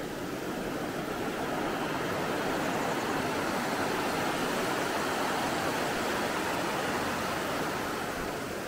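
A vehicle passing by: a steady rushing noise that swells over the first few seconds and fades near the end.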